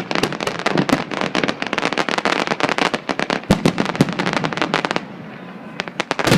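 Fireworks going off in a rapid barrage of sharp cracks and bangs for about five seconds, then thinning to a few scattered pops, with one loud bang at the end.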